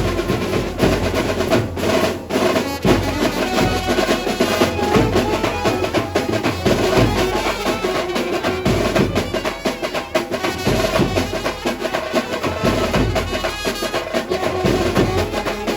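Dhumal band playing a sawari dhun: saxophones carrying the melody over steady, dense drumming and percussion.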